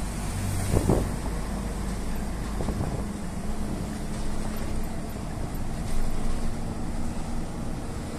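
Volvo FM420 truck's diesel engine running under way, heard from inside the cab over steady road noise, with a few brief knocks, the loudest about a second in.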